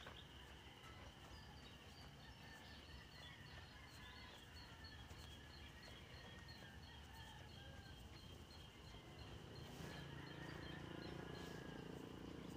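Faint outdoor ambience, near silence: a steady high drone with a string of short, evenly spaced chirps, about two to three a second. A low hum comes in near the end.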